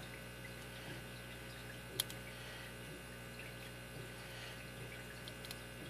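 Low steady electrical hum, with a few faint ticks and one sharp click about two seconds in as lock-picking tools and the padlock are handled.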